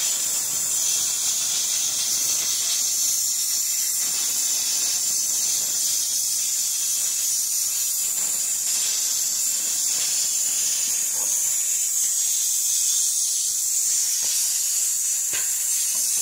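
Compressed air hissing steadily out of the wheelbarrow compressor's tank through its open drain petcock, a leak first taken for a hole in the tank.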